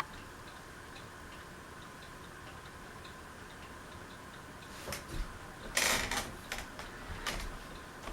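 Hugger ceiling fan running on medium speed with a steady hum and a light, regular ticking of about three ticks a second. Near the end come a few seconds of louder rustling and clicks.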